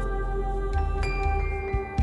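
Background music: calm new-age or ambient music with sustained, bell-like mallet notes over a steady low bass.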